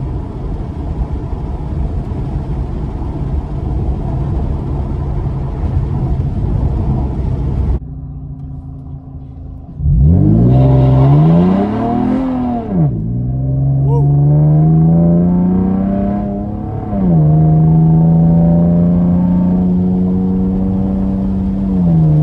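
Camaro engine heard from inside the cabin: first a steady drone with road noise, then after a quieter moment it revs up hard from low. Its pitch climbs and drops at two upshifts, then settles to a steady cruise.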